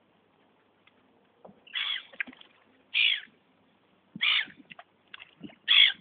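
Gulls calling over water: four loud, harsh calls about a second apart.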